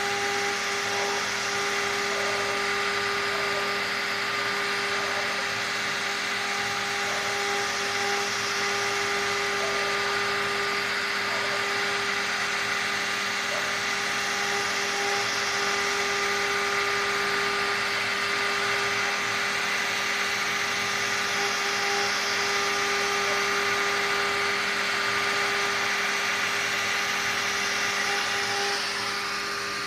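CNC engraving machine's high-speed spindle running with a steady whine while a small engraving bit cuts into a wood board, with a steady hiss over the whine. The sound eases off slightly near the end.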